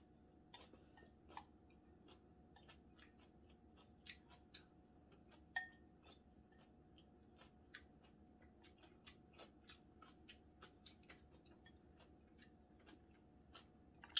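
Faint chewing of spicy cold noodles (bibim naengmyeon), with small scattered clicks of chopsticks against a porcelain bowl. One clearer, briefly ringing clink comes about five and a half seconds in.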